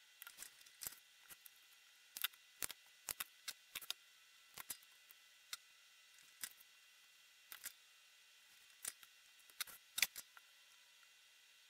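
Irregular small clicks and taps of hand tools being handled on a workbench during soldering: a soldering iron, a helping-hands clamp and side cutters set down and picked up. A quick cluster of sharper clicks comes about ten seconds in, as side cutters work at the LED board.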